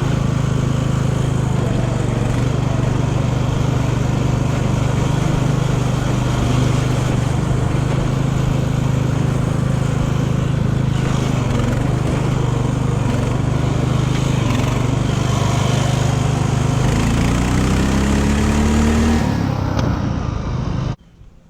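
A Craftsman LT 1000 riding mower's 17 hp Briggs & Stratton engine running steadily under load while the mower is driven. Near the end its pitch rises, then the sound cuts off suddenly.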